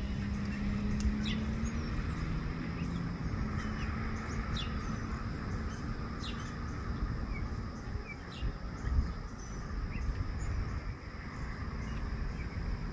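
Birds chirping: short, high, falling chirps repeating every second or two over a steady low rumble, with a faint steady hum in the first few seconds.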